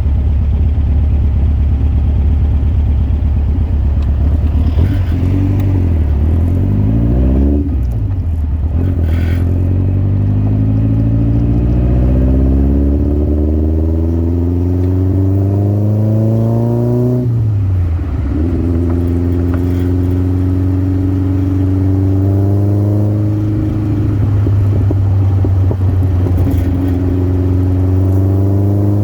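Birkin Seven's engine pulling hard on the road, its pitch climbing steadily as the car accelerates through each gear. The pitch falls sharply at the upshifts, about 7 s, 17 s and 23 s in, then climbs again.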